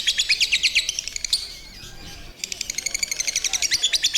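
A lovebird doing its ngekek, a long, fast chattering run of high chirps. It breaks off for about a second midway, then starts again.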